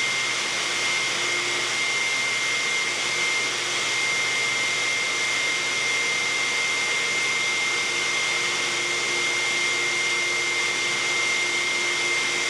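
Steady machine noise: an even rushing hiss with a constant high-pitched whine over it, unchanging throughout.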